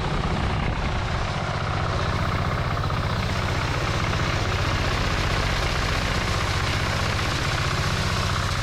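Rice blower's engine running steadily at a constant speed, with a fast, even pulsing beat while the blower cleans harvested rice.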